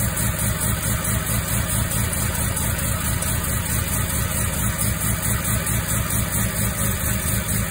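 Bridgeported Mazda 12A rotary engine idling on its modified Nikki carburettor, with a quick, even pulsing beat, while it warms up to operating temperature.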